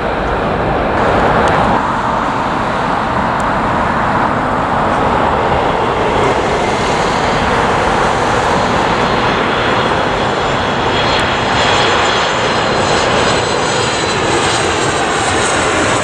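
Jet airliner on approach to land, its turbofan engines making a loud, steady rushing noise. A thin high whine comes in during the second half.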